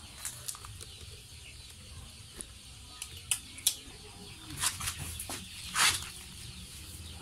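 A dog sniffing and snuffling at scraps on the ground close to the microphone: scattered short sniffs and clicks, with a louder rushing burst about six seconds in.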